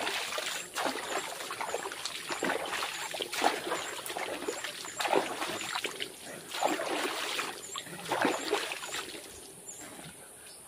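River water splashing and dripping as a man scoops it over his face and head with his hands: a run of irregular splashes that die down near the end.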